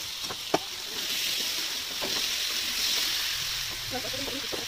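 Potatoes and tomatoes sizzling as they fry in a metal wok, a steady hiss that swells for a couple of seconds in the middle. Two sharp taps of the metal spatula on the pan come in the first half second.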